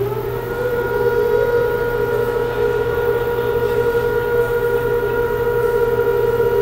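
A loud whine that climbs in pitch at the start, then holds one steady pitch over a low hum.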